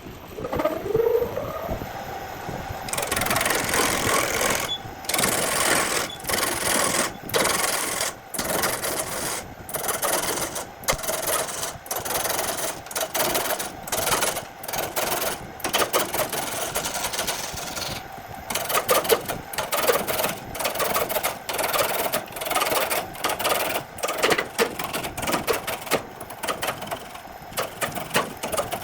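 An electric power tool motor spins up with a rising whine, then works wood in repeated harsh bursts of cutting or sanding noise, each under a second long with short gaps between.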